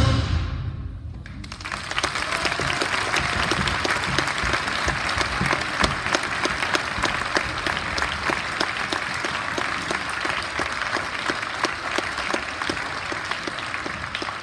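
A school concert band's last chord cuts off and dies away in the gym's echo, then the audience claps, tapering off near the end.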